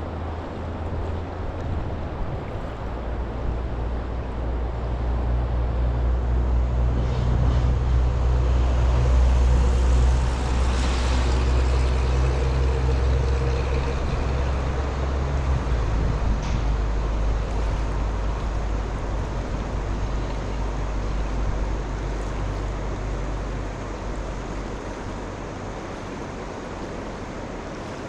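A low engine hum that grows louder over several seconds, peaks, then slowly fades away, as of an engine passing by.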